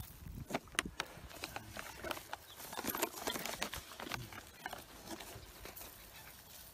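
Granular aphid insecticide being shaken from a plastic bag, with irregular crackling and pattering as the granules hit the pepper seedlings and their plug tray and the bag rustles. The crackling is densest in the first few seconds and thins out after.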